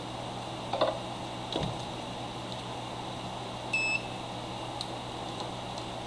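Multimeter in continuity mode giving one short high beep, about four seconds in, as its probes bridge a pin of a homemade XLR cable: the beep signals an unbroken connection. Light clicks of the probe tips against the metal connector come earlier.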